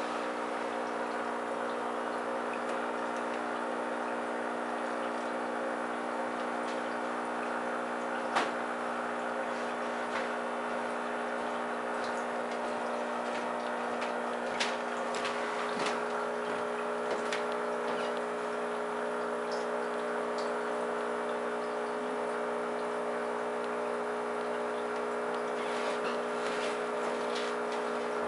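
Steady hum of aquarium equipment with air bubbling from a disc air stone in a goldfish tank, and a handful of sharp clicks between about eight and eighteen seconds in.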